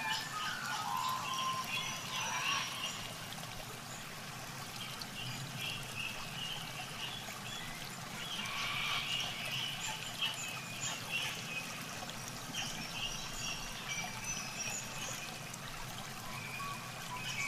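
Soft background music, mostly light held high notes with no clear beat.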